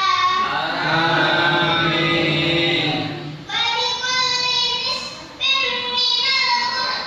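A boy chanting Qur'an recitation into a microphone in a melodic style, in long held phrases with short breaths between them about three and a half and five and a half seconds in.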